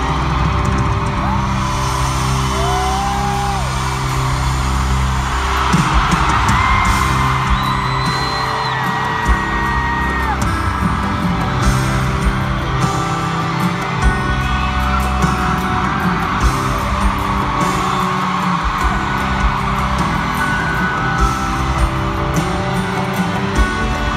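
Live band music from within an arena audience: held low synth and bass notes with drum hits coming in about six seconds in, while the crowd screams and whoops loudly.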